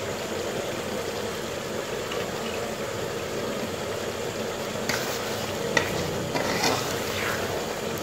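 Thick meat-curry gravy sizzling and bubbling in a metal pot while it is stirred, with a few sharp spoon scrapes against the pot in the second half.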